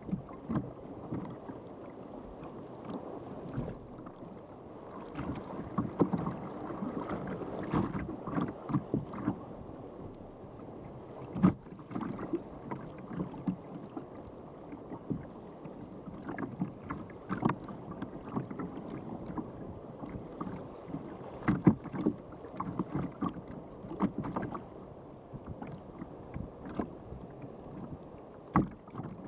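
Water sloshing and slapping against the hull of a sea kayak under way in choppy water, a steady low wash broken by frequent irregular sharp slaps.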